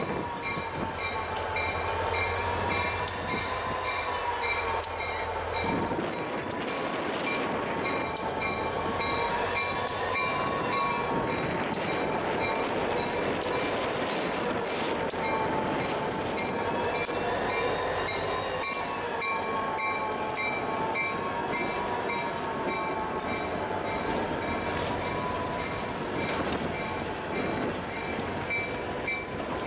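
Freight train rolling slowly past close by, with New York, Susquehanna & Western locomotive No. 3040 and its string of covered hopper cars. The wheels squeal steadily on the rails, the squeal wavering gently up and down in pitch, and scattered sharp clicks come from the wheels. A low rumble drops away about six seconds in.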